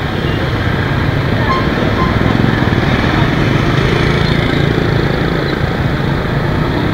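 Motor scooter's small engine running steadily under way in traffic, with road and wind noise and the engines of other motorbikes close by.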